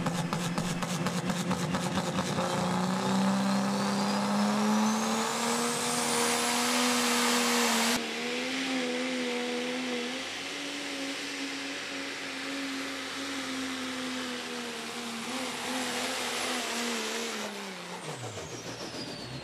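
Diesel 2004 Dodge Ram pulling truck at full throttle hauling a pulling sled. The engine note climbs and then holds high, with a thin turbo whistle rising over the first several seconds. Near the end the engine revs and the whistle fall away together as the truck runs out of power and stops short.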